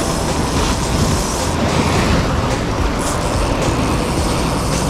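Loud, steady rush of wind and breaking sea surf on an action camera's microphone.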